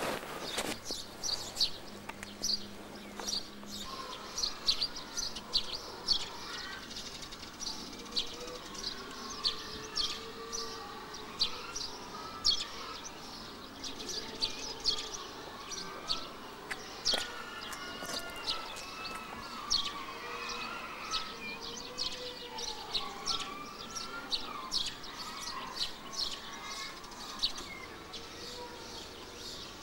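Small birds chirping: many short, high chirps come in quick irregular runs, with softer, lower wavering calls mixed in through the middle.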